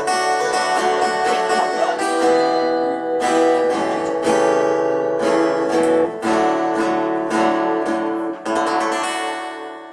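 Acoustic guitar strumming chords with no singing, the last chord ringing and fading away near the end.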